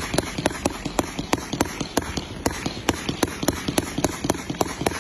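A 268-shot, 1.2-inch fireworks cake firing a rapid, steady volley of shots, about four or five a second, with the bursts of its aerial effects crackling between them.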